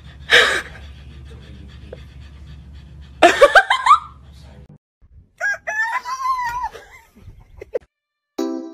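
Tabby kitten meowing: a short loud burst just after the start, then a quick series of rising meows about three seconds in, over a low steady hum. After a cut, a longer run of wavering pitched calls.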